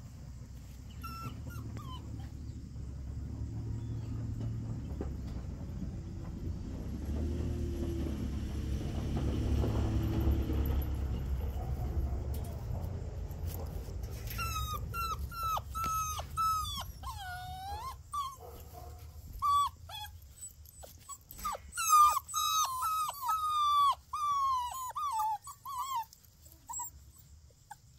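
A litter of puppies whining: many short, high, mostly falling whines, several at once, from about halfway through. Before that a low rumble swells and fades.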